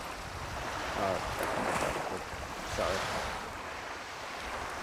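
Waves washing on a sandy shoreline with wind on the microphone, a steady noisy wash; a word or two spoken briefly.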